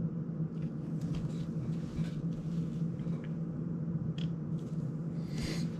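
Small clicks and rustles of plastic drone frame parts being handled and set down on a bench, with a short scrape near the end, over a steady low hum.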